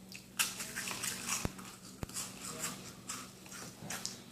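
Messy, noisy eating: a quick, irregular run of wet chewing and smacking sounds.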